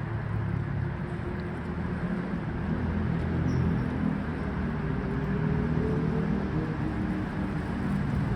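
A steady low motor hum, like an engine running, with a slight rise in pitch about halfway through.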